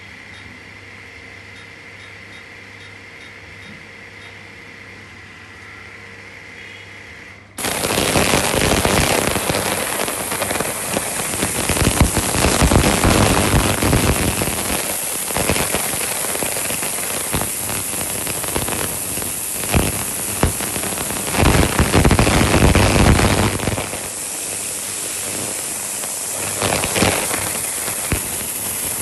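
Ultrasonic transducers of an SVU 50L ultrasonic sous vide tank running in water: a loud hiss with many fine crackles, the sound of cavitation in the bath. It starts suddenly about seven seconds in, after a low steady hum with a faint whine.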